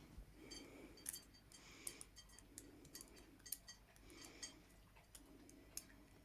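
Faint metallic clicks and clinks at irregular intervals from Clejuso 11r handcuffs and an improvised Parker pen pick as the cuffs are being picked, with light rustling between.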